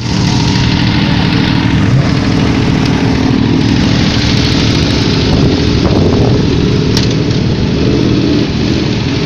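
Engines of sports cars and motorcycles idling and running close by, a steady, loud rumble of several engines together, with one short rise in engine pitch about six seconds in.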